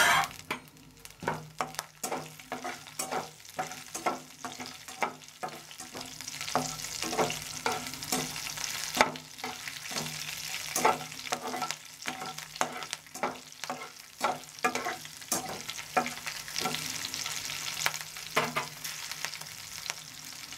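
Green chillies and urad dal sizzling in hot ghee in a non-stick kadai, with a spatula scraping and tapping against the pan about twice a second as they are stirred.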